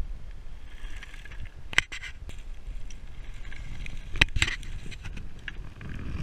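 Mountain bike rolling over a rocky dirt trail: a steady crunch of tyres on loose gravel, with sharp knocks and rattles of the bike over bumps about two seconds in and twice around four seconds in.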